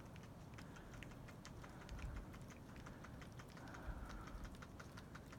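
Faint, irregular small ticks and cracks, several a second, from ice-coated tree branches crackling under their load of ice in an ice storm. Two brief low rumbles come about two and four seconds in.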